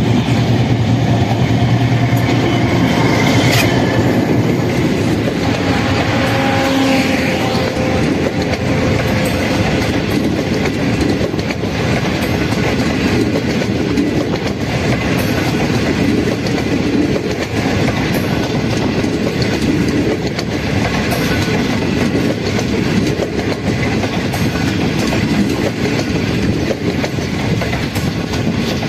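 DF7G-C diesel locomotive passing close by at the start, its engine giving a strong low steady tone. Then a long train of passenger coaches rolls past with a continuous rumble and the clickety-clack of wheels over rail joints.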